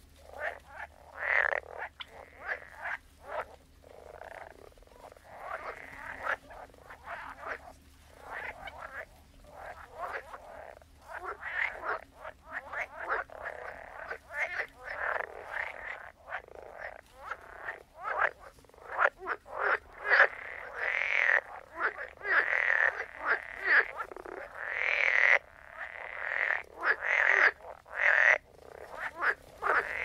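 A chorus of many frogs croaking over one another in a marsh. Short repeated calls overlap densely, and the chorus grows louder and fuller in the second half.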